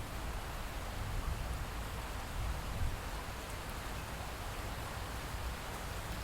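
Steady rainfall, an even hiss of rain with a low rumble beneath and a few faint drop ticks.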